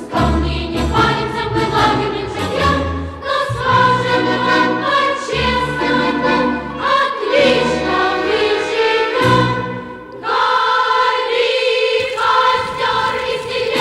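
Background music: a choir singing with instrumental accompaniment and a steady bass line.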